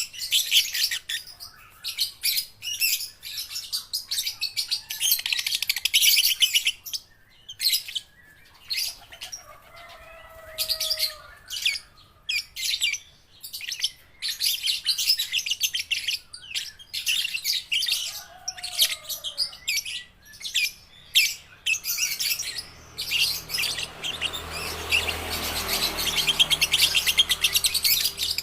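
Young lovebirds chirping and chattering in rapid, high-pitched buzzy phrases broken by short pauses, juveniles still learning their song. A low rumble builds underneath in the last few seconds.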